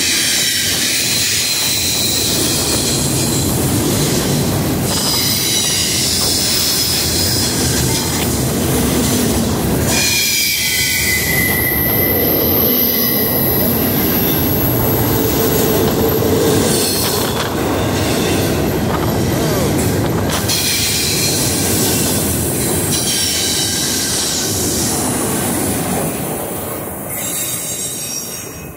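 Empty FEC double-stack container freight cars rolling past close by. The wheels squeal in several high tones that come and go over the rumble and clatter of the cars. The sound fades near the end as the last car moves away.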